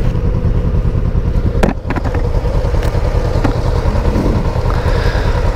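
Honda CBR400R parallel-twin engine running steadily, with heavy low wind rumble and a short clatter just under two seconds in.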